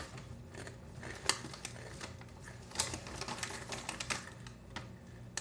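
Crunchy cheese cracker chips being chewed close to the microphone: irregular sharp crackling crunches, the loudest about a second in and around the middle.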